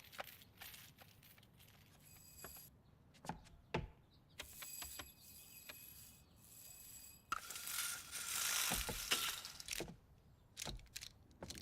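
Animated-film sound effects with no dialogue. Scattered clicks and knocks, then two stretches of a high steady tone, and a louder hissing rush about seven seconds in that lasts a couple of seconds.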